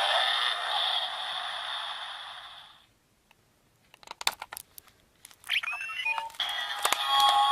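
Electronic sounds from a Zyuoh Changer Final transformation toy's small speaker. A sound effect fades out over the first few seconds, and after a short silence a few sharp plastic clicks come as the toy is worked. A gliding electronic tone then starts, followed by beeping tones and music from the speaker.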